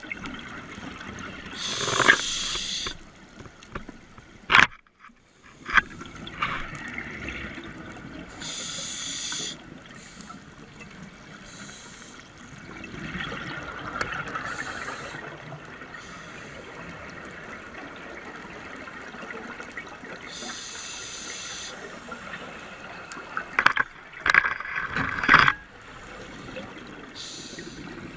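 Scuba diver breathing through a regulator underwater, with exhaled bubbles bubbling out in a hissing burst every several seconds. Several sharp clicks or knocks come through as well, loudest in a cluster near the end.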